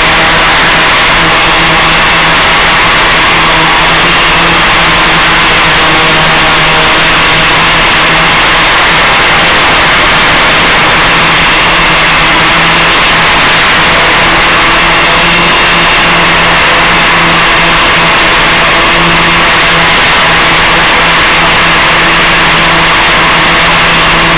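Steady hum of the Gaui 500X-S multicopter's electric motors and propellers, heard through its onboard FPV audio link under a loud, constant hiss.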